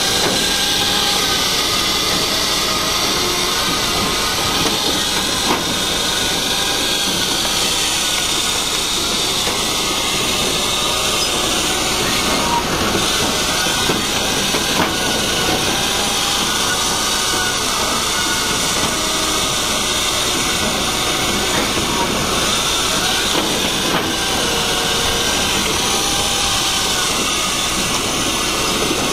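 Tractor-driven firewood processor running steadily as it cuts and splits logs, the tractor engine and machine making one continuous loud noise, with a few knocks as split pieces drop out.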